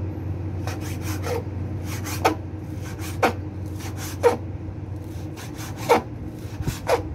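Knife chopping on a cutting board: a firm stroke roughly once a second, with lighter taps in between.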